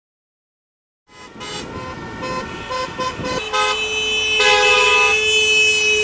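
A vehicle horn honking over street noise: a few short toots, then one long held blast.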